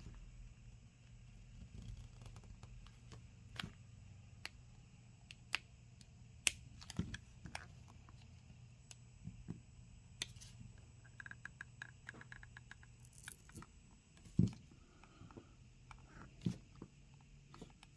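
Small tool clicks, taps and scrapes at irregular moments as a glued panel is pried open on a Samsung Galaxy Z Flip 5, over a low steady hum.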